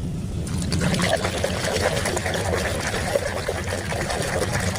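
Running water pouring and trickling over a muddy toy as it is rinsed clean.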